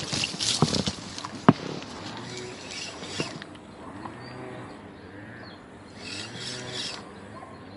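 Fishing tackle being handled in an inflatable boat: a few sharp clicks and knocks in the first second and a half, the loudest about a second and a half in, then a low, wavering whirr of a spinning reel being cranked to retrieve the lure, with short rustles.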